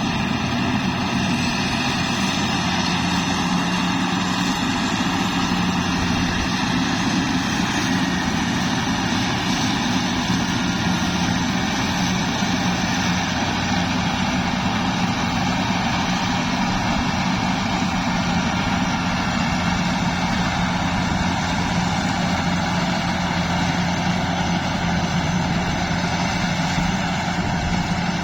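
Rice combine harvester's engine running steadily, a constant mechanical drone with an even hum of tones and no change in speed.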